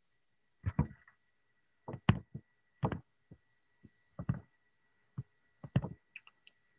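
A run of short, irregular knocks and clicks, about a dozen spread over several seconds, over a faint steady high whine.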